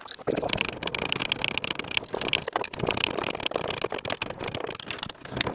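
Metal hand tools and fittings clicking and rattling in quick, irregular strokes as nuts and bolts on a sailboat's rudder hardware are worked loose.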